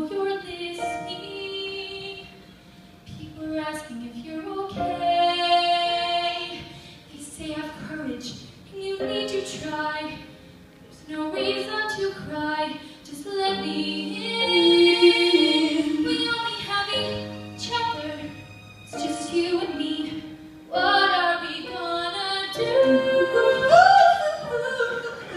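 Two young female voices singing a pop duet into handheld microphones, amplified over a sound system, with long held notes between shorter phrases.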